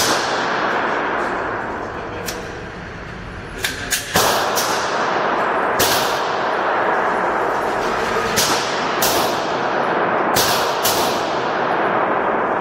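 Pistol shots from a Polymer80-frame Glock-pattern handgun fired with a 3D-printed magazine: about a dozen single shots at uneven intervals, a few in quick pairs, each ringing off the walls of an indoor range lane.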